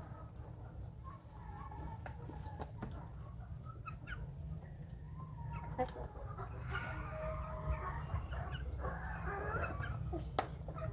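Young chickens clucking and calling, the calls growing busier and louder in the second half, with a few sharp clicks among them.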